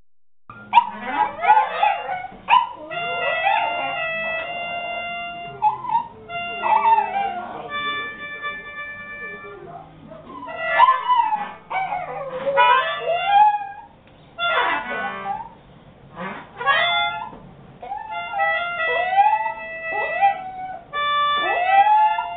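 An accordion playing held notes while a small long-haired dog howls and whines along with it in rising and falling glides. The music and the howling start about half a second in.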